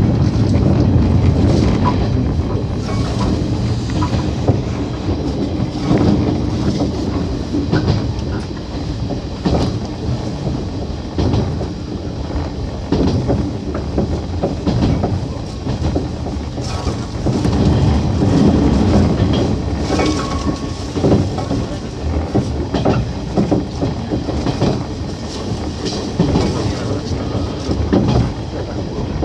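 JR East 115 series electric train running, heard from inside its front cab, with clickety-clack knocks from the rails and a rustling scrape as overgrown grass on the right side brushes against the car.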